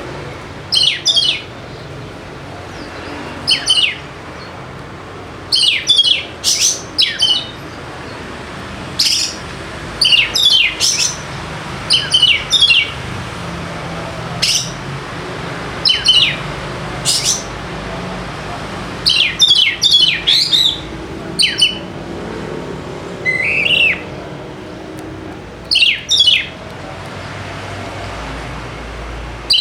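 Oriental magpie-robin (kacer) calling: short, loud notes that sweep steeply downward from very high pitch, in clusters of one to four every second or two, over a steady background hiss.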